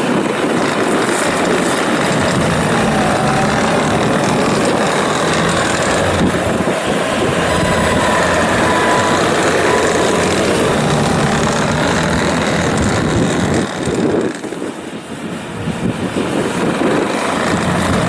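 2017 Bobcat T650 rubber-track skid steer loader running at working revs, its diesel engine loud and steady, easing off briefly about fourteen seconds in before picking up again.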